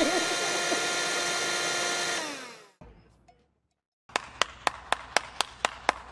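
A small electric motor running with a steady whine, winding down and stopping about two and a half seconds in. After a short silence comes a run of sharp, evenly spaced clicks, about four a second.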